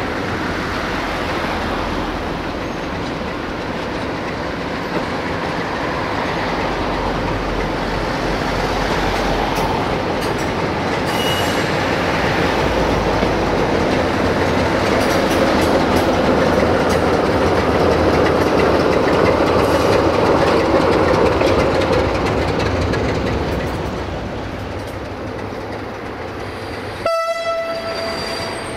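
CFR class 060-DA (LDE2100) Sulzer diesel-electric locomotive hauling passenger coaches slowly past, its engine running and the wheels rumbling over the rails. The sound swells to its loudest midway and eases off later. Near the end comes a short horn blast.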